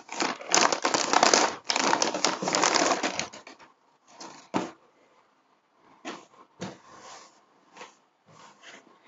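Clear plastic packaging bag crinkling loudly as it is opened and a garment pulled out, for about three seconds. Then quieter, scattered rustles and soft taps as the black fabric is unfolded and handled.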